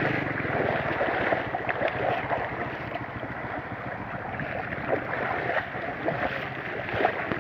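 Shallow brown floodwater sloshing and splashing as people wade through it on foot, with irregular small splashes from their steps.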